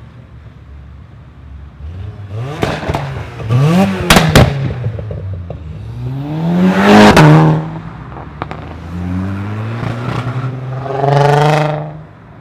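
A car engine idling, then revved three times. Sharp bangs from the exhaust come during the first rev. The last rev is held briefly at high revs before dropping suddenly back to idle.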